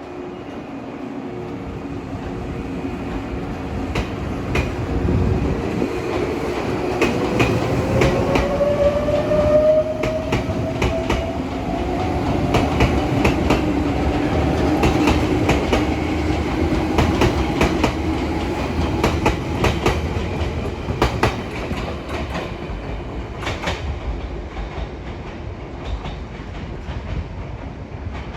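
Izukyu 2100 series electric train pulling away: its traction motors give a whine that climbs in pitch as it gathers speed, over a steady rumble and irregular clicks of wheels over rail joints. It grows louder through the middle, then fades a little as the train moves off.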